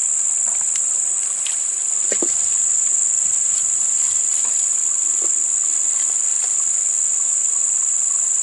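Night insects droning in one steady, high-pitched chorus, with a few faint short ticks and chirps scattered through it.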